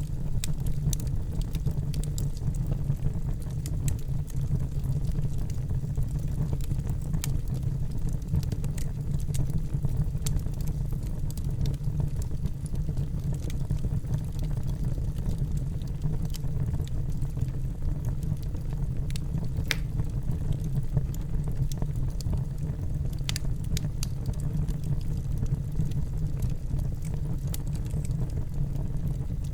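Wood fire burning in a fireplace: a steady low rumble with sharp crackles and pops scattered irregularly throughout.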